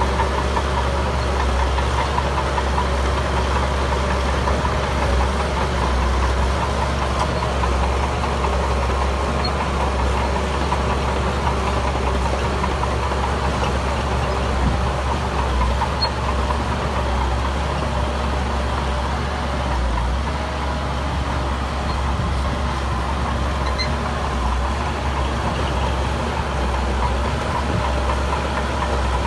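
Diesel engine of heavy earthmoving machinery running steadily, with no big changes in speed.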